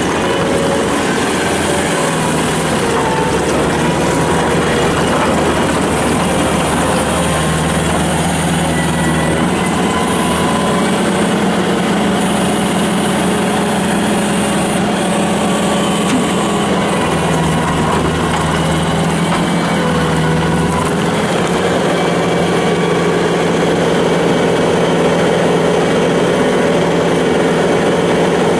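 Bobcat T300 skid steer's Kubota turbo diesel engine running steadily, its note shifting slightly in pitch partway through and getting a little louder near the end.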